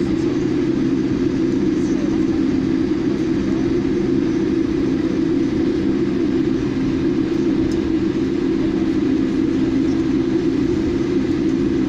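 Cabin noise inside a taxiing Boeing 787 Dreamliner: a steady hum of the engines at low taxi power and the cabin air, level and unchanging throughout.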